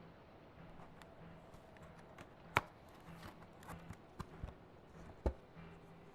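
Quiet room tone with a faint, on-and-off low hum and a few scattered sharp taps or knocks, the two loudest about two and a half and five seconds in.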